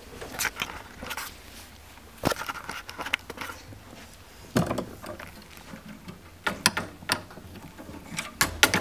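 Irregular clicks, knocks and rustling, with sharper knocks a little over two seconds in, about four and a half seconds in, about six and a half seconds in, and a cluster of them near the end.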